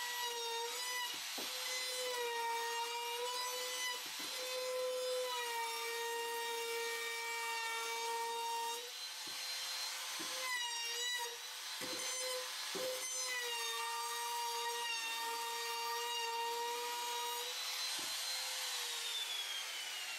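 Handheld trim router running with a steady high whine as its chamfer bit cuts a bevel along the edges of wooden pallet runners. The pitch sags briefly each time the bit bites into the wood. Near the end it is switched off and winds down with a falling whine.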